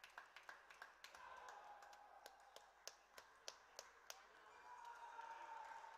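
Table tennis ball clicking off paddles and table in a fast rally, about three sharp hits a second, stopping about four seconds in when the point ends.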